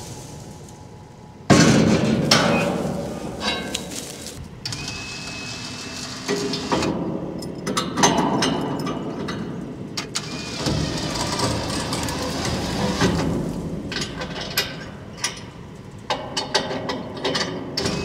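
Metal clanks and knocks of a field bin's drawbar being coupled to a ute's tow hitch, many sharp knocks scattered over a rough mechanical background that comes in suddenly about a second and a half in.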